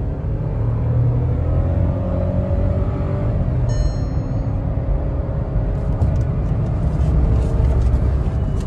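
Volkswagen Virtus's turbo-petrol engine heard from inside the cabin, accelerating from a standstill toward 100 km/h. The revs climb, fall back as the DQ200 dual-clutch gearbox shifts up about three and a half seconds in, then climb again. A short electronic chime sounds about four seconds in.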